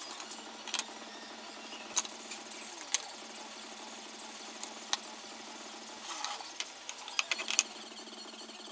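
An aluminium speed square and a pencil handled on a wooden board: separate sharp clicks and taps every second or so, then a quick run of scratchy ticks and scrapes near the end, over a faint steady hum.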